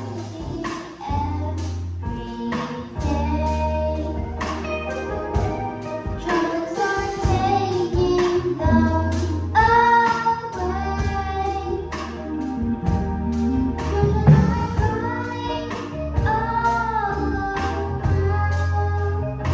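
Children's gospel choir singing over instrumental accompaniment with steady bass notes and a regular drum beat.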